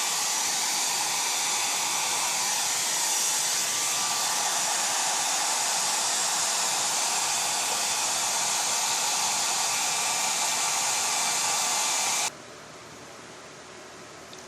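Hand-held hair dryer blowing a loud, steady stream of air over freshly dyed carpet fibres to dry the dye. It cuts off abruptly about twelve seconds in.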